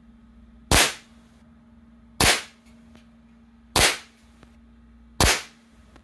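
Four shots from a .22 Crosman 2240 CO2 air pistol, built up as a carbine with a 14.6-inch barrel. Each is a sharp pop with a brief tail, about one and a half seconds apart.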